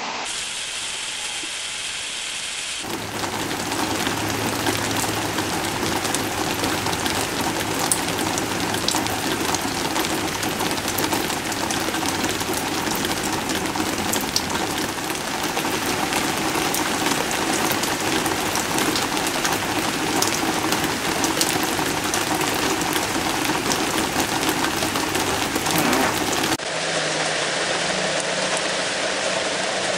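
Heavy rain pouring down and pattering on a deck, dense steady hiss sprinkled with sharp individual drop impacts. It grows louder and fuller about three seconds in and drops back a little near the end.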